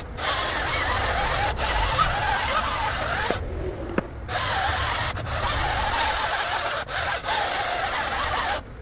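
Greenworks 82-volt battery chainsaw cutting through a log, its chain rasping and its motor whining and wavering under load. The sound breaks off for under a second about three and a half seconds in, then resumes. It cuts off suddenly near the end, where the battery gives out.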